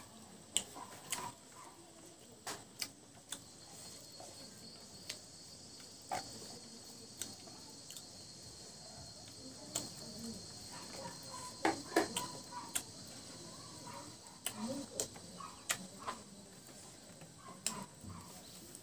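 Close-up eating sounds of a man eating rice and curry by hand: wet mouth clicks, lip smacks and chewing, with the fingers squelching through the rice. Through the middle a steady high insect-like drone runs faintly underneath.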